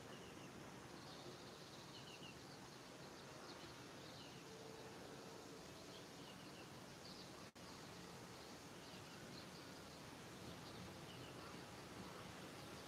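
Faint outdoor ambience with small birds chirping now and then in the distance, in short quick clusters of high notes. The sound briefly drops out about halfway through.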